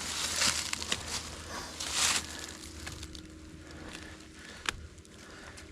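Flattened wooden stick scraping and picking at icy, frozen soil to widen a post hole: two strong rough scrapes, near the start and about two seconds in, with small crunches and ticks between.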